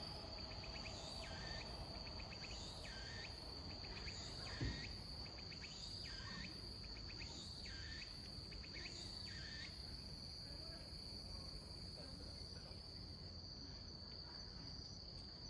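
Walker's cicada (tsukutsukuboshi) singing its repeated phrase at a slow tempo, about one phrase every 1.3 seconds, stopping about ten seconds in; the uploader wonders whether the slow singing means the late-season cicada is weakening. A steady high-pitched tone runs underneath, and there is a single soft knock about four and a half seconds in.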